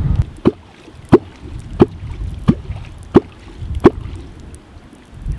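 Six sharp, evenly spaced watery plops, each with a short pitched ring, about one and a half a second.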